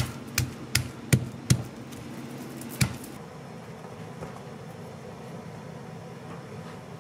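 Knife chopping garlic cloves on a wooden chopping board: six sharp chops in the first three seconds, then only a faint steady background.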